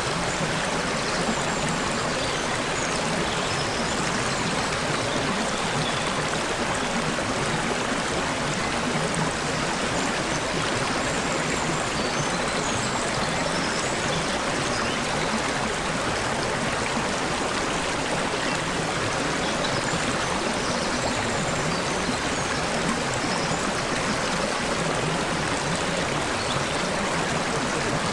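Water flowing and babbling over rocks in a stream, a steady, unbroken rush.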